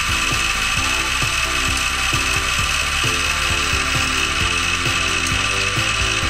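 PC case exhaust fan running with a loud, steady grinding growl from a fan bearing that is wearing out and dying.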